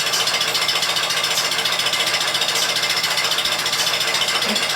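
Barn machinery running with a steady, rapid mechanical rattle.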